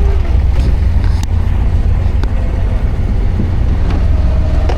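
Engine of a small water-taxi boat running steadily, heard on board: a loud, constant low rumble.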